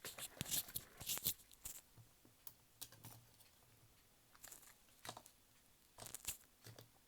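Short bursts of scratchy clicking and scraping from small metal parts being handled, as a tiny retaining clip is tried on a cassette player's mechanism. The densest bursts come in the first two seconds, with a few more scattered later.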